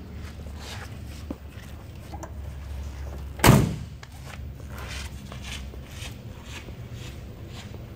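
The driver's door of a 1956 Chevrolet 210 slammed shut once, about three and a half seconds in, a single heavy thud, over a steady low hum.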